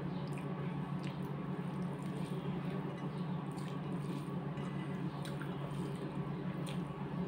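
Fingers mixing and squeezing rice with curry on a plate, giving soft wet squishing and small clicks, over a steady low hum.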